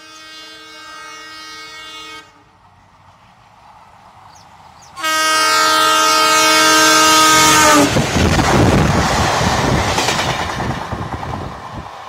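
WDG3a diesel locomotive's air horn sounding twice: a blast that stops about two seconds in, then a louder one about five seconds in that sags in pitch as it cuts off nearly three seconds later. Then the loud noise of the locomotive and coaches going past, fading away toward the end.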